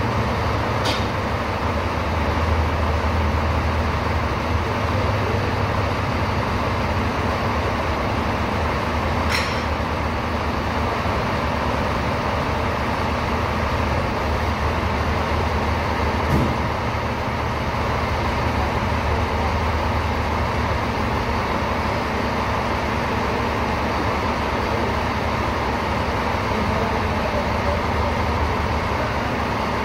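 Steady low background rumble, with three sharp metallic clinks from work on a stripped-down engine block: one about a second in, one near ten seconds and one near sixteen seconds.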